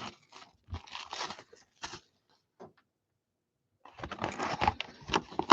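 Trading-card box and its foil-wrapped packs being handled and laid out: irregular crinkling and scraping, a pause of about a second, then denser crinkling near the end.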